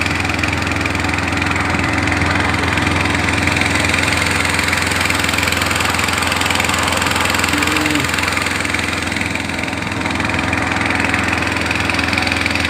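Boat engine running at a steady speed, a continuous engine hum with wind and water noise.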